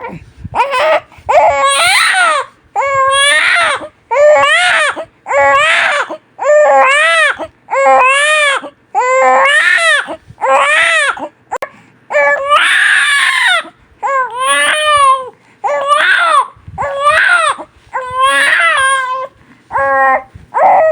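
Newborn baby crying hard: a run of loud, wailing cries, each about a second long and rising then falling in pitch, broken by quick gasps for breath, with one longer, strained cry near the middle.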